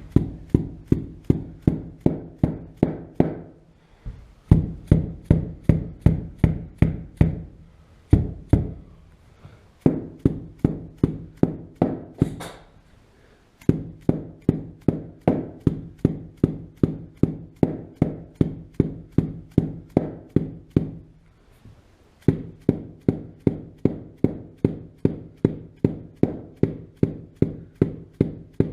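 Rapid, even knocking, about three to four blows a second, in runs of several seconds with short pauses between them. Each blow rings on with a low hum.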